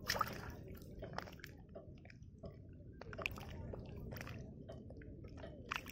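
Green mussels being pulled off shoreline rocks by hand, their shells giving irregular sharp clicks and crunches over a faint low background noise.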